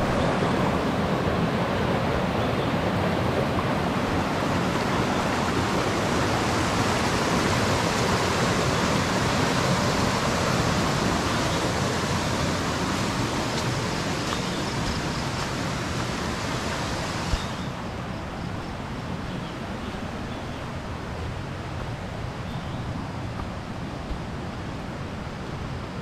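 River water flowing, a steady rushing noise. About two-thirds of the way through it suddenly turns quieter and duller.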